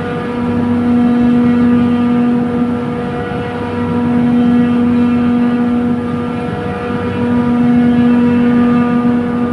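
Trane chiller compressor running: a loud steady machine hum with a strong low tone and overtones, the main tone dropping out briefly a few times. This is the noise examined on the discharge valve side.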